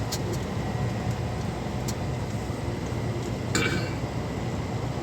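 Steady road and engine rumble inside the cab of a moving truck, with a brief sharper sound about three and a half seconds in.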